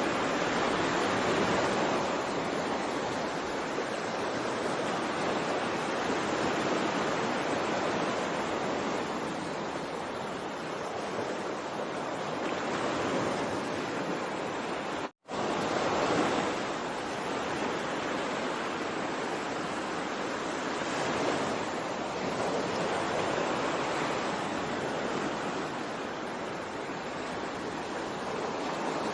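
Ocean surf, a steady wash of waves that swells every few seconds as each wave breaks. The sound cuts out for an instant about halfway through.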